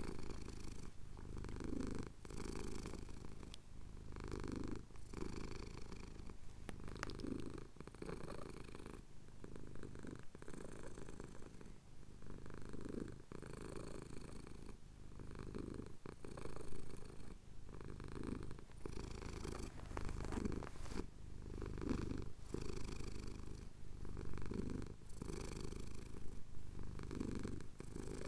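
Domestic cat purring close to the microphone while having its chin scratched, the purr swelling and fading with each breath about every second and a half.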